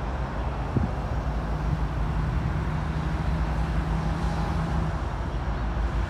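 Diesel freight locomotives approaching slowly, a steady engine drone mixed with wind rumble on the microphone. A low hum holds from about two seconds in until about five seconds in.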